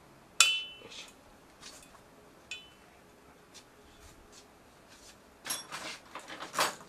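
Small metal brake-cable joint fittings clinking as they are handled: a sharp click with a short metallic ring about half a second in, a lighter one about two seconds later, then a quick cluster of clicks near the end.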